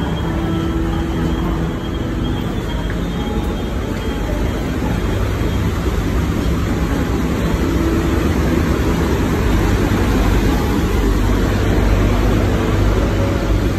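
Steady low rumble of a moored Star Ferry's engines running, with a faint hum on top, growing a little louder over the second half.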